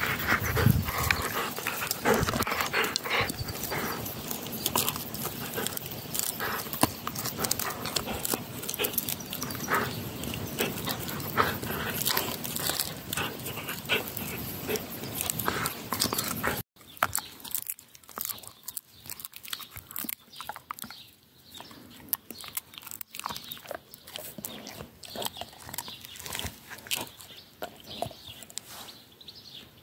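Golden retriever chewing on a wooden stick close up: dense crackling and snapping of wood between her teeth. About 17 seconds in it cuts off abruptly, and a quieter, sparser crackle of chewing follows.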